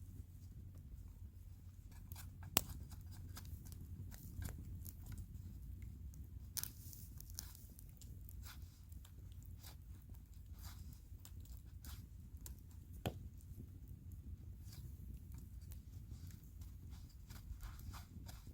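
Irregular sharp cracks and crunches of dry Korean pine wood, a few louder snaps among many small ones, over a steady low rumble.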